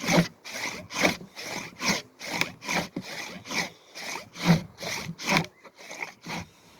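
Handsaw cutting through wood in steady back-and-forth strokes, about two a second.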